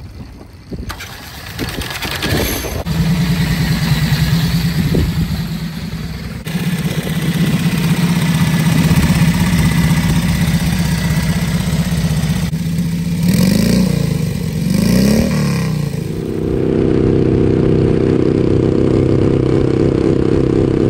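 Turbocharged Harley-Davidson 45 flathead V-twin, with a suck-through turbo blowing through the carburettor, running with a steady low beat. It is revved twice in quick rises and falls. Near the end a motorcycle engine holds a higher, steady note at speed.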